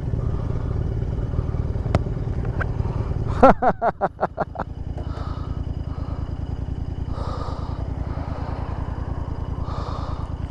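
Motorcycle engine idling steadily, with a brief louder burst about three and a half seconds in.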